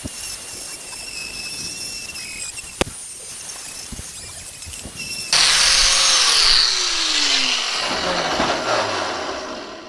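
Electric angle grinder with a wire wheel scrubbing rust off the sheet steel of a truck's lower fender, a steady whine over the scraping. About five seconds in it turns suddenly louder and harsher, then the motor's pitch falls as it winds down and the noise fades.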